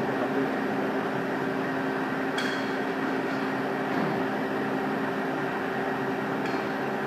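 Amada CNC hydraulic press brake's hydraulic unit humming steadily, with two sharp metallic clinks, about two and a half seconds in and again near the end.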